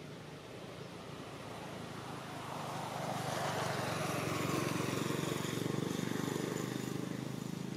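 A motor vehicle's engine passing by, growing louder to a peak in the middle and then fading.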